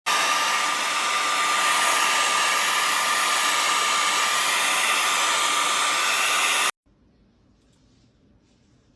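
A small electric blower motor running: a steady rush of air with a thin high whine, starting abruptly and cutting off suddenly after about seven seconds.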